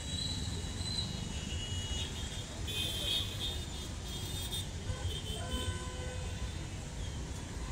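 Road traffic at a busy junction: a steady low rumble of motorbike, auto-rickshaw and car engines, with short horn toots. A long steady horn note starts about five and a half seconds in.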